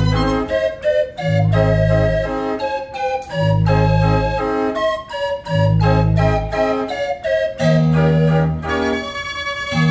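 1949 Carl Frei fairground organ playing an opera piece on its pipes: a busy melody over long bass notes that sound about every two seconds.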